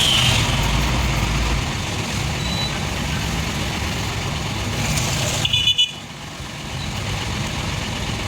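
Steady rumble of road traffic, with a short horn toot about five and a half seconds in.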